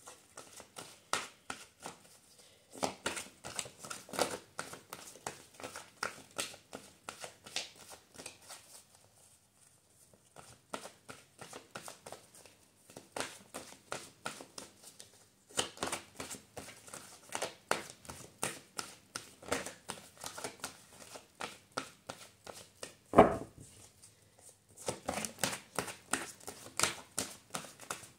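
Tarot cards being shuffled by hand: a deck's cards flicking and clicking against each other in quick runs, with short pauses between runs and one louder knock about 23 seconds in.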